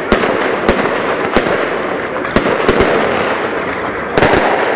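Evolution "Golden Sander" firework shooting loud gold bursts: about seven sharp bangs at irregular intervals, two of them close together near the end, over a continuous crackling hiss.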